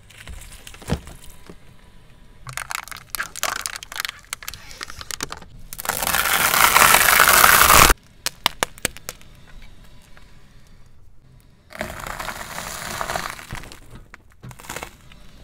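A car tyre rolling over and crushing a series of objects, heard as separate bursts of crackling, popping and cracking. Plastic bags of coloured liquid crackle and pop, then one bursts with a loud rush for about two seconds that cuts off abruptly. Near the end, dry bread slices crunch and crack under the tyre.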